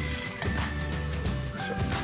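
Background music with held notes over a steady bass line.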